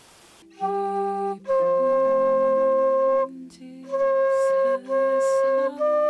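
Bamboo transverse flute playing a slow melody of long held notes, starting about half a second in, with short breaths between phrases, over lower sustained notes from an accompaniment.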